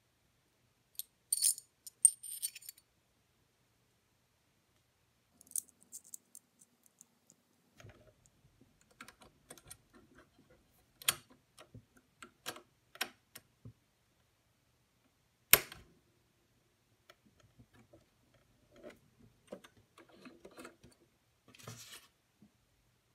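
Metal bobbin case and bobbin being handled and fitted into the hook of a front-loading sewing machine: small metallic rattles near the start, then a string of light clicks and taps, with one loud sharp click past the middle as the case snaps into place.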